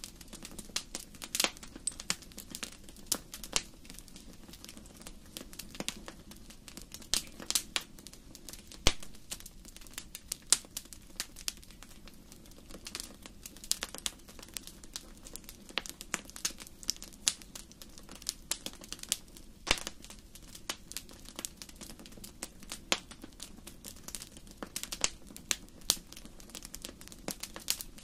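Wood fire in a fireplace crackling: irregular sharp pops and snaps, several a second, over a low steady rumble of the burning.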